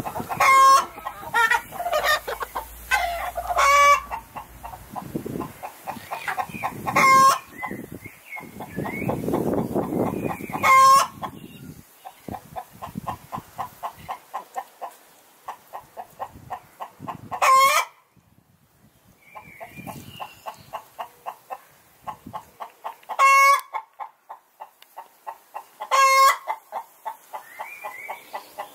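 Chickens clucking in long rapid runs of short notes, several a second, broken every few seconds by a loud, short squawk.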